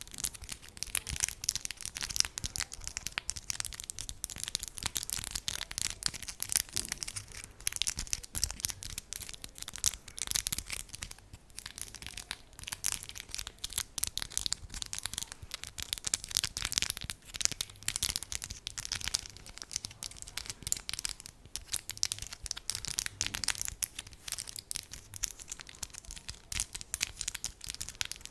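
Close-miked ASMR tapping: rapid, continuous runs of crisp, sharp taps on an object, many per second, with a few brief pauses.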